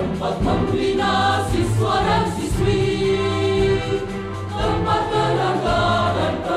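A choir sings an Indonesian school march (mars) over an instrumental backing, with the lines "Tempat membina siswa dan siswi, tempat berharga dan penuh inspirasi".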